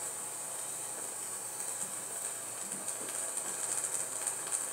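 Steady high hiss, with a few faint small ticks and rustles in the last couple of seconds.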